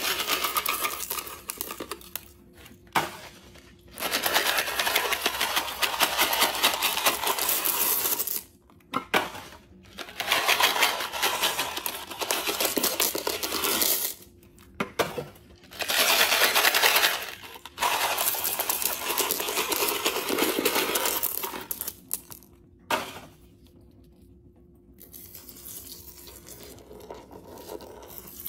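Small hard candies such as Reese's Pieces and Mike and Ike being poured from cardboard boxes into a porcelain toilet bowl, rattling and clattering in several pours of a few seconds each with short pauses between them. The last few seconds are quieter.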